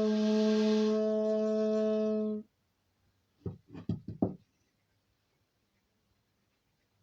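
Bamboo flute holding one steady low note with a breathy edge, which stops about two and a half seconds in. About a second later there are a few short sounds, then quiet.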